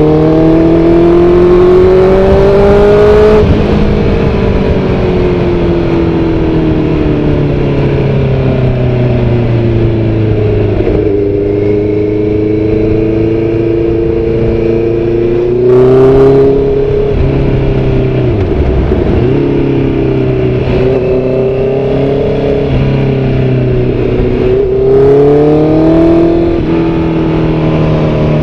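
Motorcycle engine under way, its pitch climbing under throttle, dropping, then climbing again several times as the rider accelerates and eases off, over a steady low rush of wind.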